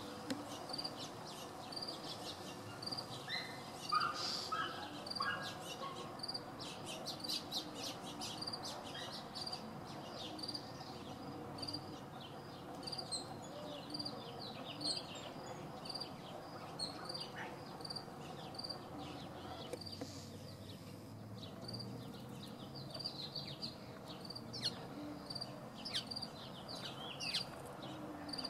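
Outdoor chorus of small high bird chirps and calls, with one high chirp repeating evenly about once a second.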